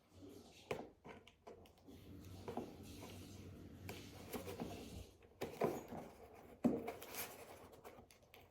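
Cardboard box being handled and cut open: irregular scrapes, rustles and clicks, with a few louder knocks, the sharpest about two thirds of the way through.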